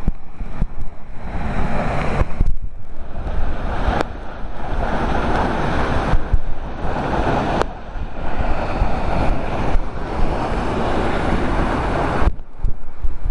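Waterfall pouring into its pool: a steady, loud rush of falling water, with wind gusting on the microphone.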